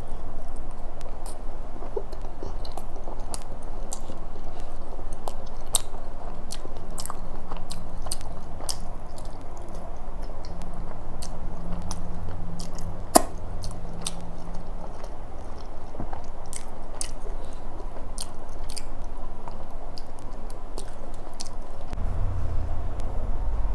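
A person chewing flaky laccha paratha with paneer tikka masala, with irregular wet mouth clicks and smacking and one sharper click near the middle.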